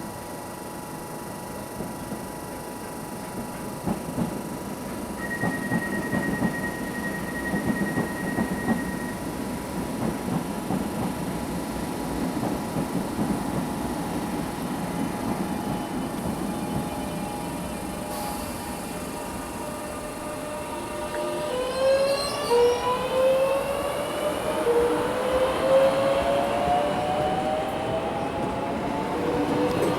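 Onboard a British Rail Southern Region 2EPB electric multiple unit: the wheels and the worn English Electric traction motors rumble as the train runs, the rumble building about four seconds in. Past the two-thirds mark a motor whine rises in pitch over and over, each rise starting again lower, as the unit picks up speed.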